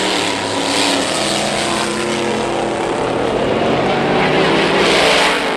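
Two dragsters, one a big supercharged car, running a quarter-mile race side by side at full throttle; the engine noise is loud and steady.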